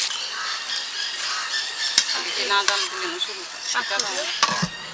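Curry simmering and sizzling in an aluminium pot while a metal spatula stirs it, with one sharp clink of the spatula against the pot about two seconds in. Indistinct voices in the background.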